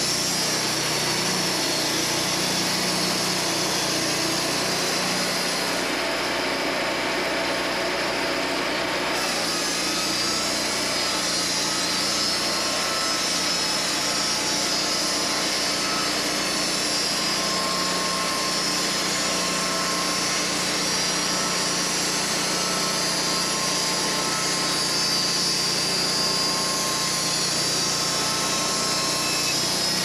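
Wood-Mizer LT portable band sawmill running steadily, its engine-driven band blade sawing through a red oak log.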